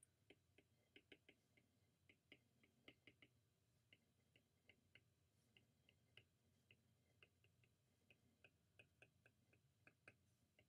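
Faint, irregular clicks of a stylus tip tapping a tablet's glass screen while words are handwritten, a few taps a second.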